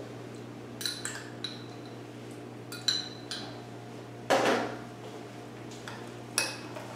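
A metal spoon clinking against a small glass jar while scooping out chopped pimentos, several light clinks with a brief ring. About four seconds in comes a louder clatter at the steel sink, then a spoon knocks against the mixing bowl as the pimento cheese is stirred.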